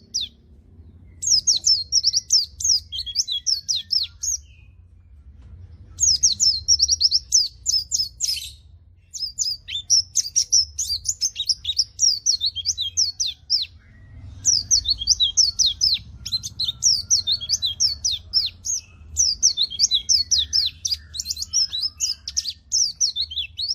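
White-eye (pleci) singing energetically: fast runs of high, twittering notes in several long bouts, with short pauses between them, over a faint low hum.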